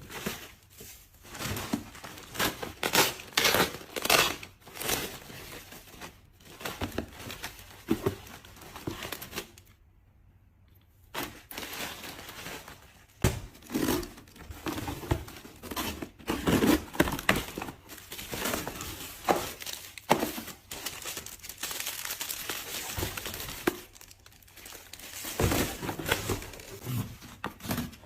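Packaging crinkling and tearing as an item is unboxed, with small knocks of handling. There is a second of near quiet about ten seconds in.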